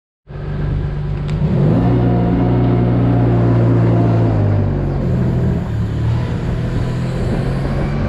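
Compact farm loader's diesel engine running under load while it scrapes manure. The engine note rises about a second and a half in, holds, then eases back a little around the middle.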